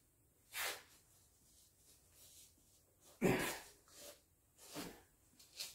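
A man's heavy breaths and forceful exhales of effort as he strains on a long torque wrench to pull a balancer bolt up to 230 foot-pounds. The loudest exhale comes about three seconds in.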